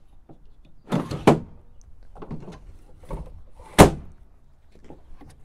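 A Ford Super Duty's fold-out tailgate step being folded up and pushed back into the tailgate: several metal clanks, the loudest a sharp bang just before four seconds in as the step goes home.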